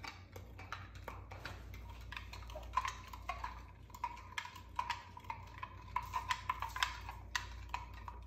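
Metal spoon stirring sugar into warm water in a glass Pyrex measuring cup, clinking against the glass again and again. Through the middle part the glass rings with a steady tone as the spoon keeps tapping it.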